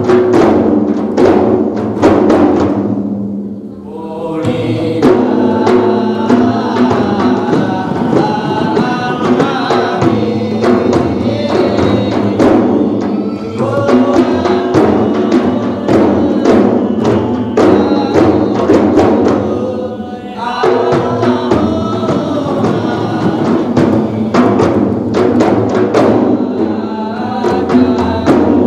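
Several large hand-held frame drums (rebana) struck together in a fast, steady rhythm, with a group of voices chanting over them. The voices break off briefly about 3 seconds in and again about 20 seconds in while the drumming continues.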